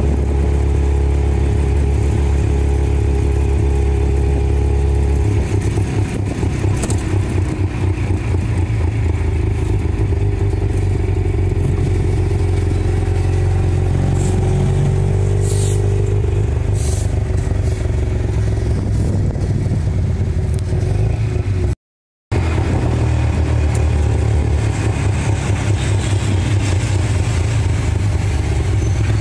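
Small tuk-tuk engine running and pulling away as it drives along a street, heard from the passenger seat, with a few sharp clicks near the middle. The sound cuts out briefly about two-thirds of the way through.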